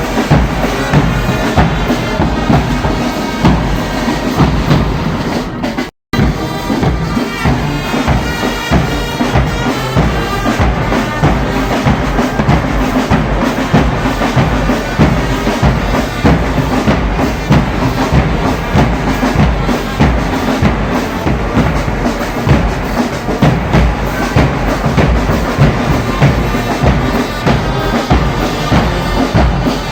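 Brass band playing with drums, a bass drum keeping a steady beat under the held horn notes. The sound cuts out for an instant about six seconds in, then the band carries on.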